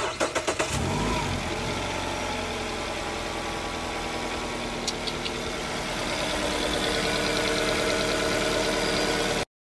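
Jeep Renegade's 2.4-litre four-cylinder engine cranking briefly with a quick run of pulses, catching, and settling into a steady idle on its first start after an oil change with fresh 0W-20. The sound cuts off suddenly near the end.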